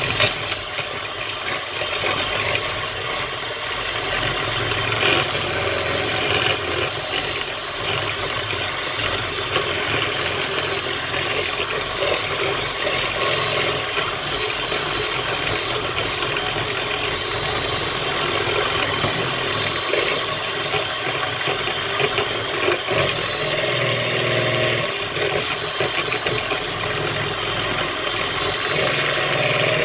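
Electric hand mixer running steadily, its twin beaters whisking egg whites and sugar into a foam for a sponge cake batter.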